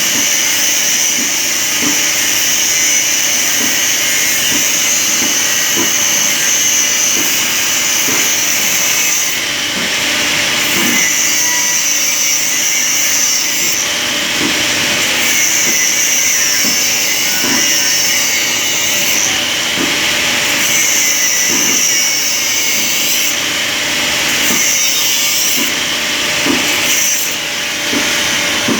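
Angle grinder grinding metal: the motor runs steadily while the wheel on the workpiece gives a loud, high, hissing grind. The grind breaks off briefly several times, about every four to five seconds.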